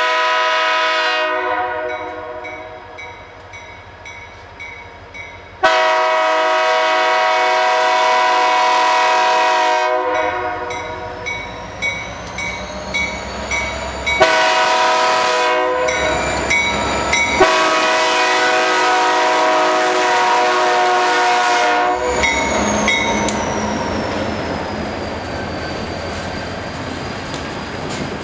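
A diesel locomotive's Nathan Airchime air horn blowing the grade-crossing signal (long, long, short, long), loud enough to overload the camera's microphone. Wheels click over the rail joints between the blasts. After the last blast the train rumbles past with a thin high squeal that falls in pitch.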